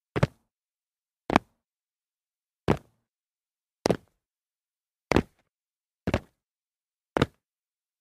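Feet landing on concrete after jumps: seven short thuds about a second apart, some doubled where the two feet strike a split second apart.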